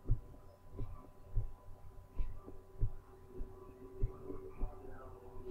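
Soft low thumps repeating unevenly, about one every half second to second, over a faint steady hum.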